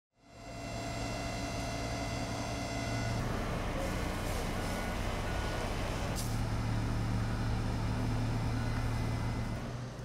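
Fire engine running with a steady low hum under a noisy rush; a few short beeps sound in the middle.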